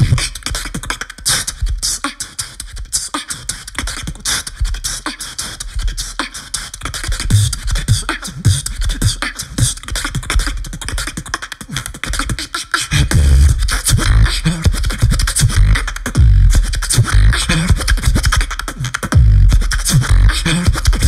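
Solo beatbox performance into a handheld microphone: rapid vocal clicks and hi-hat and snare sounds. The first half is lighter with little bass, then heavy bass kicks come back in a little past halfway.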